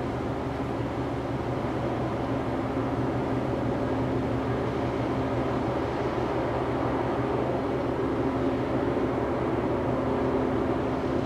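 The engines of a large LNG-powered container ship droning steadily as it passes, a low hum made of several held tones over an even rush.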